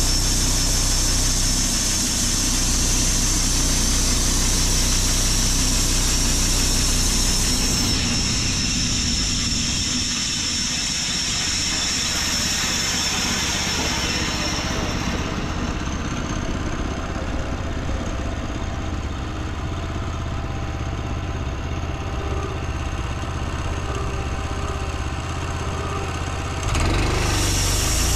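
Portable band sawmill running, its engine steady while the blade saws through an ash log. A high hiss is strong for about the first half and fades away around the middle. The sound steps up louder shortly before the end.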